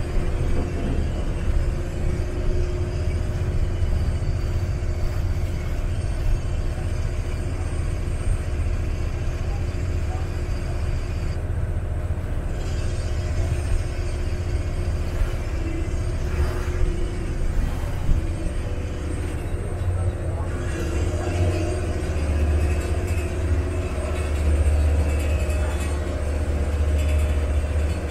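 Steady low rumble of a vaporetto's diesel engine under way, heard from the open deck, with the hiss of water and air passing.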